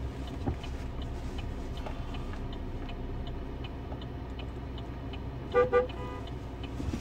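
Car cabin noise: a steady low road rumble with a regular tick about twice a second. About a second before the end come two brief high-pitched sounds close together.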